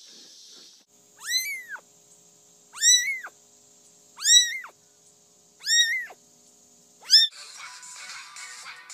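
Kitten meowing five times, about once every second and a half, each call a short, high-pitched mew that rises and then falls. Music starts near the end.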